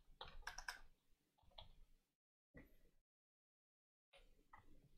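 Computer keyboard keystrokes clicking faintly, a handful of separate taps as new lines are started in the editor, broken by stretches of dead silence in the middle.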